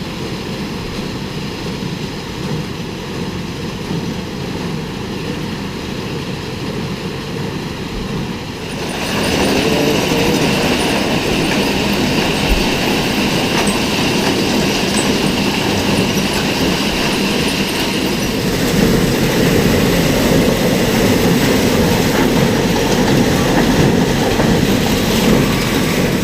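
A vehicle running steadily with a rattling rumble. It gets louder about nine seconds in and stays at that level.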